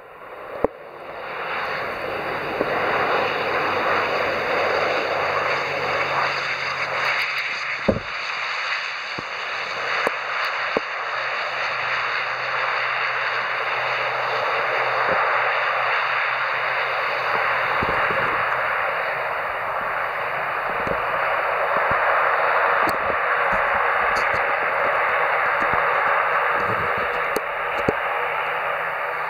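Engines and propellers of an ATR 72-500 turboprop airliner running loudly as it rolls out along the runway just after touchdown, swelling about a second in and then holding steady. A few brief clicks stand out near the middle.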